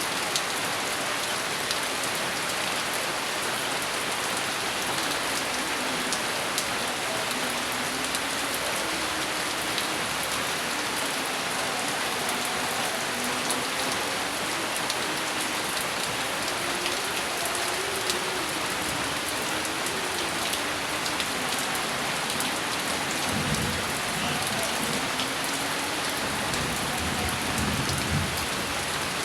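Steady rain pouring onto a surface, dense hiss with individual drops ticking through it. Low thunder rumbles twice near the end.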